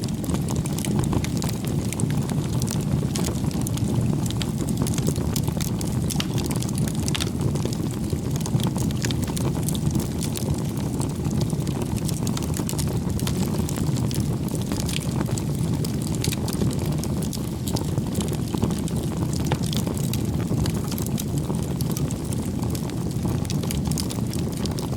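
Fire burning steadily: a low, even rumble of flames with many sharp, irregular crackles.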